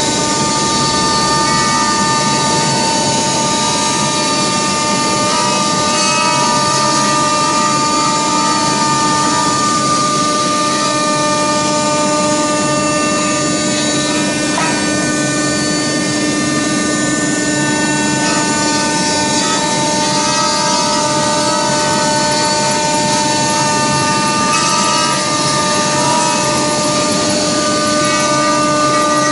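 Multi-spindle CNC router carving wood: the spindles run with a steady whine of several held tones over a constant hiss of cutting. One of the tones drops out for a few seconds in the middle and then returns.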